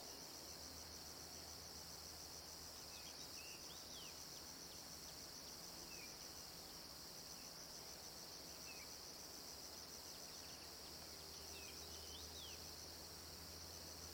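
Faint, steady high-pitched insect chorus with a fast, even pulse, and scattered short bird chirps.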